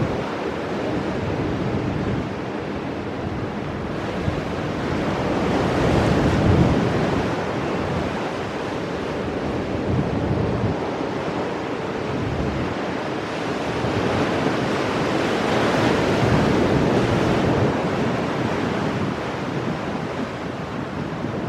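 Pacific surf breaking and washing over shoreline rocks, a continuous rushing that swells louder about six seconds in and again around sixteen seconds. Wind buffets the microphone underneath.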